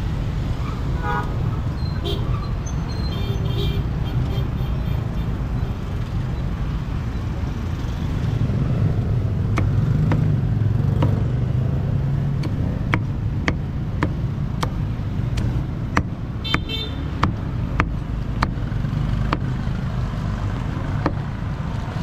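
Steady low street-traffic rumble. From about ten seconds in, a run of sharp knocks, one or two a second.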